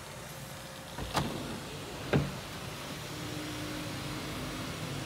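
Electric panoramic sunroof of a 2020 Kia Sportage being opened: two sharp clicks about a second apart, then the sunroof motor hums steadily from about three seconds in as the glass panel slides back.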